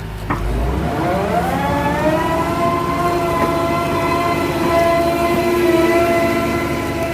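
Excavator's diesel engine revving up from a low idle, its pitch rising over about a second and then holding at high revs with a steady, horn-like whine.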